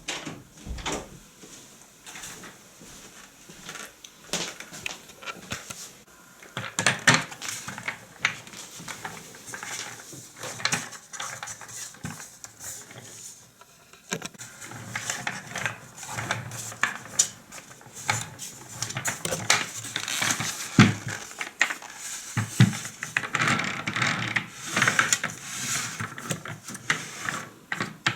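Irregular clicks, knocks and clatter of hard plastic parts being handled, busier from about seven seconds in, with no motor running.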